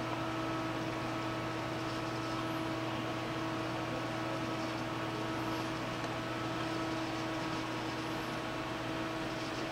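Steady whir of a running desktop computer's cooling fans, with a constant electrical hum under it.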